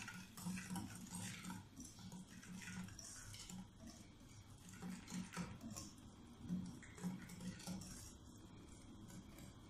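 Wire balloon whisk beating flour into a runny egg-yolk batter in a glass bowl: faint, irregular wet swishing with light clicks.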